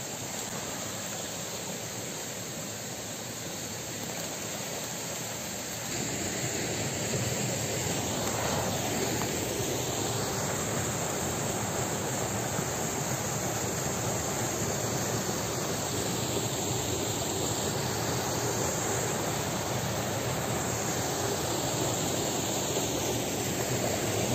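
Running water of a small stream, a steady rushing noise that grows louder about six seconds in.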